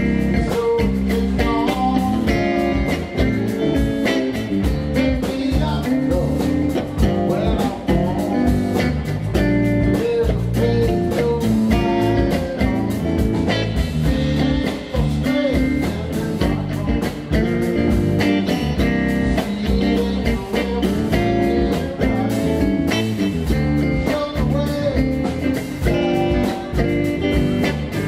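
Live blues-rock band playing, with a Telecaster-style electric guitar played through an amp over a drum kit beat.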